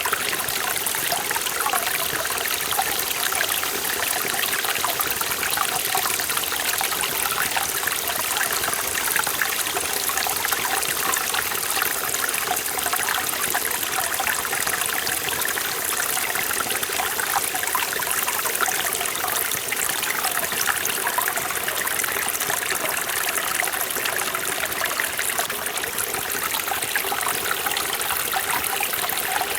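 Forest mountain stream flowing over rocks, a steady bright rush of water with fine splashing and trickling and no deep low rumble.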